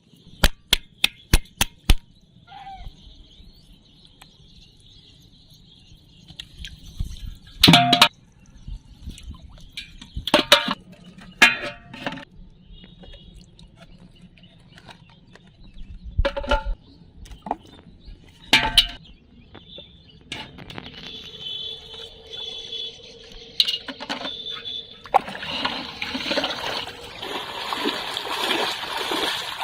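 Water splashing and sloshing, broken by scattered sharp knocks, and turning to steady, continuous splashing near the end.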